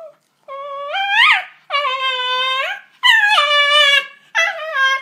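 A black-and-tan Shiba Inu gives four long, high-pitched whining howls, the first rising in pitch near its end. It is the breed's yodelling protest, aimed at making another dog give up its resting spot.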